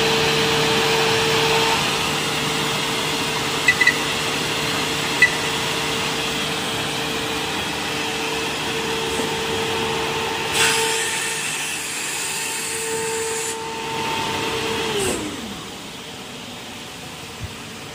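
Spindle motors of an automatic 45-degree tenon and mortise machine running with a steady whine through a cutting cycle, with a few sharp clicks early on. About ten and a half seconds in, a hiss of air lasts about three seconds. About fifteen seconds in, the whine falls in pitch as the spindles wind down at the end of the cycle.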